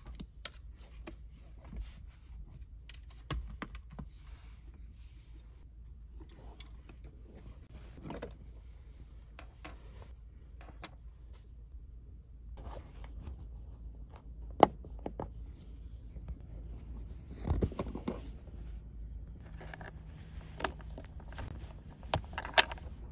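Scattered small clicks, taps and rustles of things being packed away: a folding tablet keyboard case closed and put down, then cloth curtains rustling as they come off metal curtain rings. One sharp click about two-thirds of the way through is the loudest sound.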